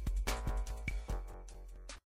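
Song's backing beat with deep bass and sharp drum hits, cutting off suddenly at the end as the track finishes.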